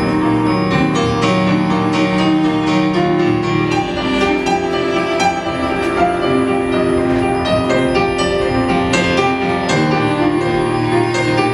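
Instrumental music led by piano: sustained chords in the low and middle range that change every second or two, with many quick notes struck above them.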